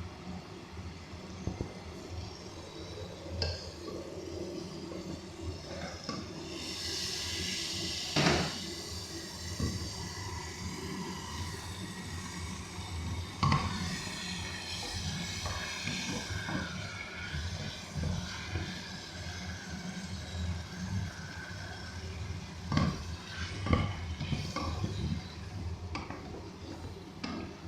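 Metal utensils clinking and knocking against a cooking pot, in scattered strokes, with spells of hiss from food cooking in the pot.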